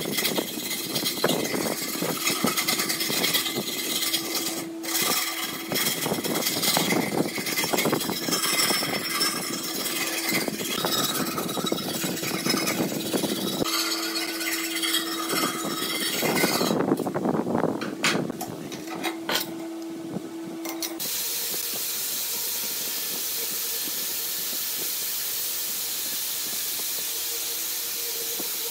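A hand file rasping in uneven strokes across the edge of a steel brake-disc axe head. About 21 seconds in, this gives way to the steady hiss of an angle grinder running a red abrasive disc against the steel.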